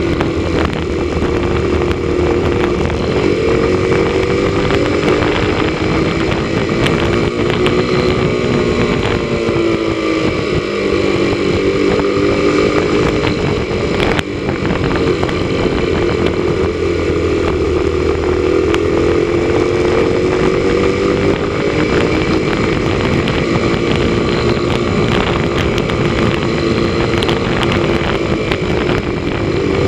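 Motorcycle engine running at road speed, its note rising and falling gently with the throttle, over a steady rush of wind.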